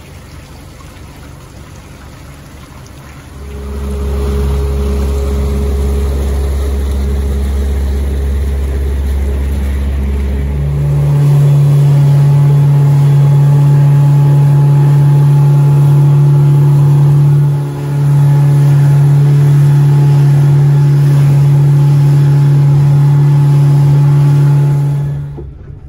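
Outboard motor of a small fishing boat running hard under way, a loud steady drone. It starts about three and a half seconds in, steps up in pitch and loudness about eleven seconds in as the boat gets up to speed, dips briefly once, and stops suddenly near the end.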